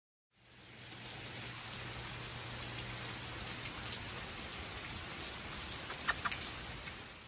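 Steady rain falling, an even hiss of raindrops, with a few sharp ticks about six seconds in.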